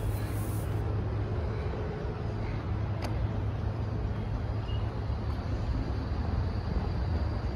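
Outdoor city ambience: a steady low rumble of distant road traffic, with a faint single click about three seconds in.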